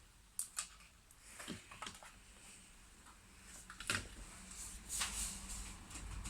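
Scattered light clicks and taps from laptop parts being handled: the just-removed motherboard and loose components moved about on a work surface.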